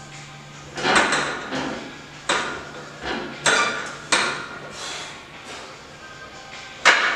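A series of sharp metallic clanks, about six, each ringing briefly, spaced irregularly about a second apart, with the loudest near the end.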